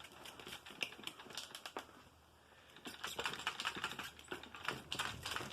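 Dry dirt and debris spilling and rattling out of a Whisper Cyclonic vacuum's dust cup onto carpet: a patter of small irregular clicks, with a brief lull about two seconds in before denser clicking resumes.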